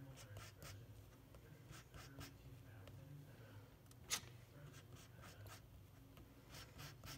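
Faint scrapes and taps of a metal palette knife mixing oil paint on a palette, scattered and irregular, with one sharper tap about four seconds in.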